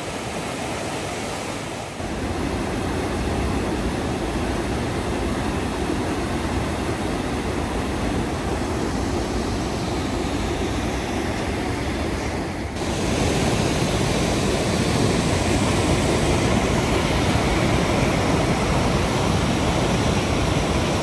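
Fast white water of the McKenzie River rushing as a steady, even noise, stepping louder about two seconds in and again a little past halfway.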